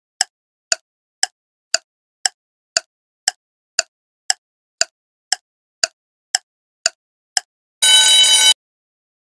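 Countdown timer sound effect: a clock ticking about twice a second, then a short alarm ring of under a second near the end as the countdown reaches zero.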